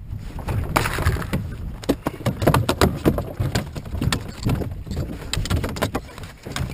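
A freshly landed gummy shark thrashing in the bottom of a small plastic boat: a rapid, irregular run of knocks and slaps against the hull, starting about a second in. Wind rumbles on the microphone underneath.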